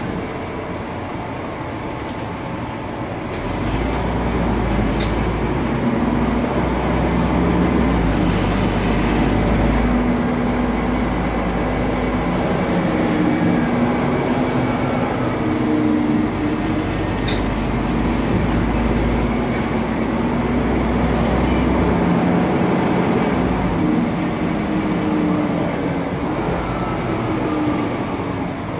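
Inside a Mercedes-Benz Conecto NG CNG city bus under way: its rear-mounted Mercedes M 936 G turbocharged gas engine and cooling fan run noisily. The sound grows louder about four seconds in as the bus accelerates, and the engine note rises and drops as the Voith automatic gearbox works through the gears.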